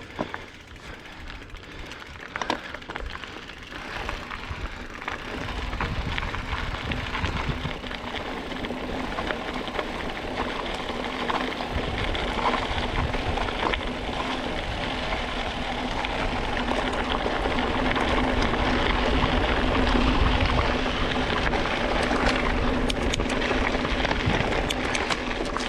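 Mountain bike riding a rough, wet trail: a rushing noise of wind and tyres that grows louder as speed picks up, with rattling clicks and knocks from the bike over the ground and a steady hum underneath.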